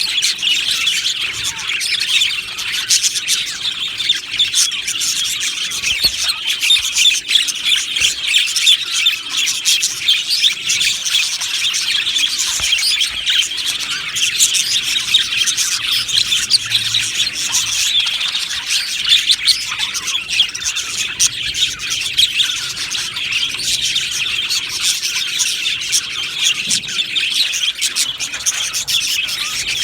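A flock of budgerigars chattering and chirping together without a break, a dense overlapping warble of many birds.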